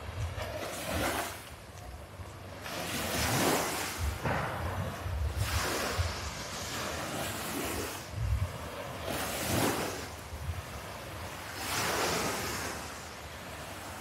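Small waves washing onto a sandy beach, each wave swelling into a rush of surf every two to three seconds. Wind buffets the microphone in low rumbles.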